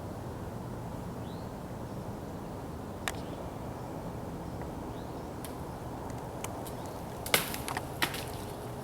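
Steady outdoor background hiss with a faint click about three seconds in, then a sharp smack about seven seconds in and a smaller one a second later.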